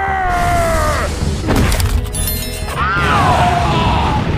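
Background music under animation sound effects: a pitched cry sliding downward, a crash of breaking asphalt and rubble, then another cry that rises and falls.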